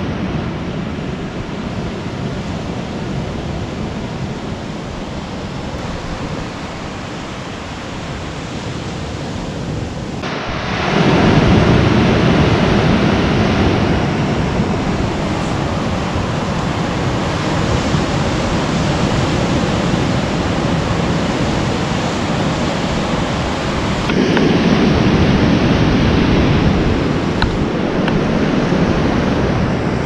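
Ocean surf breaking and washing over a sandy, rocky beach: a steady rush of noise. It grows louder about ten seconds in and again in the last quarter.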